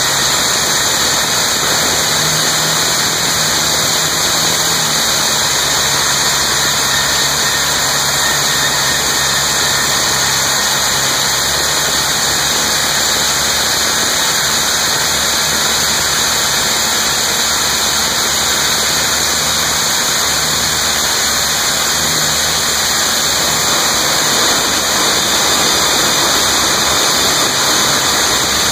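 Hand-held pneumatic rock drills (stopers) drilling bolt holes into the rock, giving a loud, steady din of drilling and compressed-air exhaust hiss.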